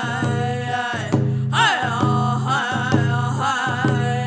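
Round dance song: two boys singing together over frame hand drums struck in a steady beat, about two strokes a second.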